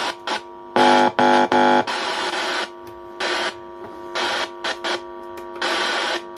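Home theater amplifier playing sound through its speaker in abrupt, choppy bursts, a steady pitched tone cutting in and out every fraction of a second. This is the unclear-sound fault that a replaced 10K volume potentiometer has not cured.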